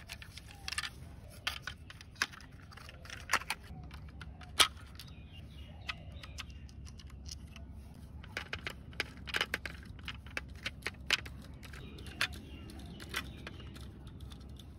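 Scattered clicks and light rattles of a toy truck's parts being handled and fitted together, then a small screwdriver turning a screw into its plastic chassis.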